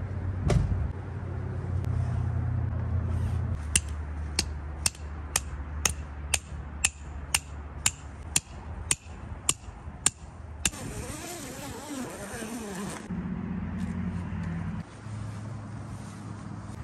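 Van engine idling with a steady low hum. A run of about a dozen sharp knocks or clicks, evenly spaced about two a second, comes through the middle, followed by a couple of seconds of hissing noise.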